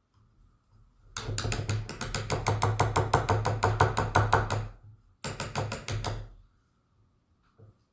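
Mallet tapping a carving chisel into wood in traditional Korean seogak carving: a long run of quick, even strikes, a short pause, then a shorter run.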